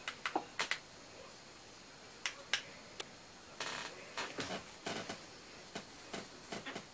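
Short sharp clicks of handheld remote-control buttons being pressed, a few single presses in the first half and then a quicker, irregular run of clicks.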